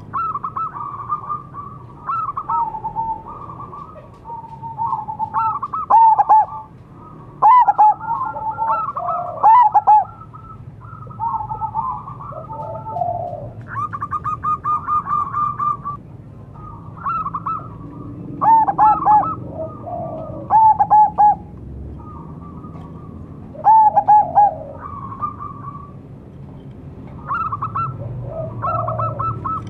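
Zebra doves (perkutut) cooing: several birds calling back and forth in overlapping runs of quick, soft coo notes. One louder, nearer bird breaks in several times.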